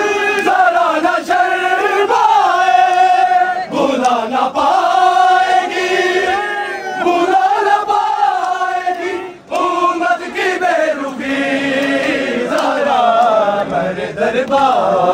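A group of male voices chanting a noha, a Shia Muharram lament, in long, drawn-out wavering notes, with a brief break a little past the middle.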